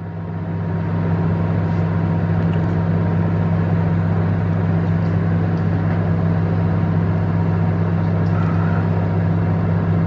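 Microwave oven running: a steady low hum over an even whirring noise, swelling over the first second and then holding level.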